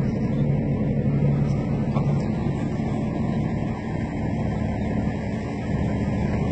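Engine of the crane recovery vehicle running steadily with a low, even hum, easing slightly about four seconds in.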